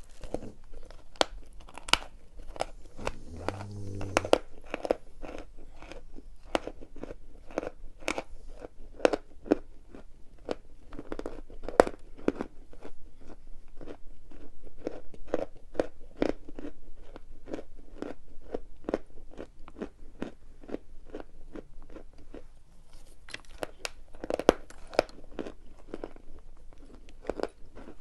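Dry Algem edible chalk being bitten and chewed, giving repeated sharp, dry crunches with the chewing sounds between them.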